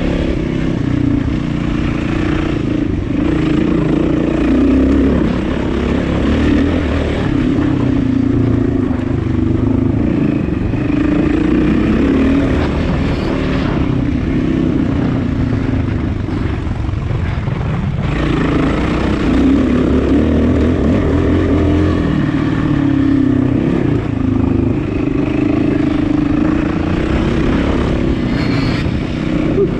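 Enduro motorcycle engine running as the bike is ridden slowly round a dirt motocross track. Its note rises and falls with the throttle, easing off for a few seconds past the middle and picking up again.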